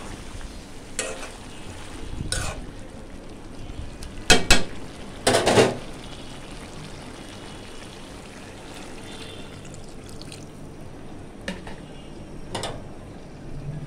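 A utensil knocks and scrapes against a cooking pan several times. The loudest is a quick double knock about four seconds in, followed by a short clatter. Under it runs a faint steady sizzle of a rui fish curry with beans, potatoes and tomato cooking in the pan.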